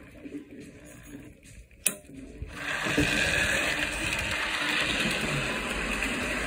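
A single sharp click, then the Rivarossi HO GG1 model locomotive's electric motor and gear drive run with a steady whirr on the track, setting in about two and a half seconds in.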